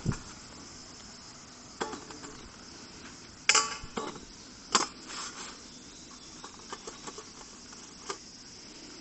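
Insects, likely crickets, chirping steadily. Several sharp knocks and clatters cut through it, the loudest about three and a half and five seconds in.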